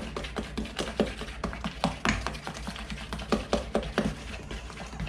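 Irregular clicks and taps of a utensil against a mixing bowl as wet muffin batter is mixed, several a second, with a louder knock about two seconds in.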